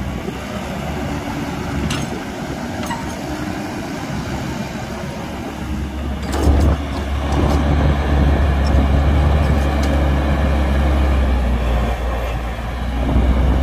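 Heavy diesel engines of an excavator and dump truck running steadily, with a sharp thud about six seconds in. After the thud the low engine drone runs louder.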